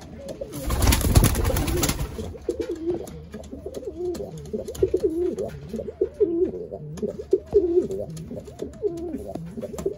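Racing pigeon cock cooing repeatedly in a wooden nest box with his head lowered to the nest floor: the nest call, inviting the hen to the nest. A brief loud rustle comes about a second in, before the cooing starts.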